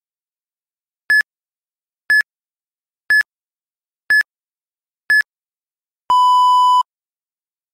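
Interval-training timer beeps: five short high beeps one second apart counting down, then one longer, lower beep. The long beep marks the change between a one-minute run and a one-minute recovery.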